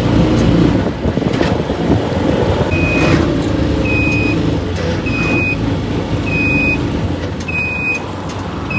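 Cargo tricycle running along the road with a steady rumble. From about a third of the way in, a short high electronic beep repeats roughly once a second.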